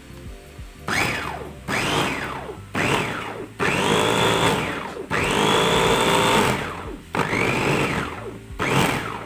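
Electric mini food chopper run in short pulses: about seven bursts, two of them longer in the middle. In each the motor whines up to speed and winds down as it chops chillies and shrimp paste into a sambal that is being kept coarse.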